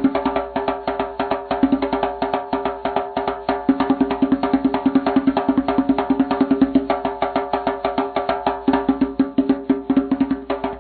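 Music with a fast, steady percussive beat over held low tones.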